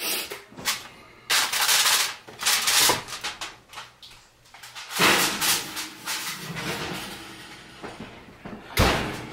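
Kitchen handling noises as a covered baking dish goes into the oven: rustling and scraping with a clatter about five seconds in, then a loud thud near the end as the oven door shuts.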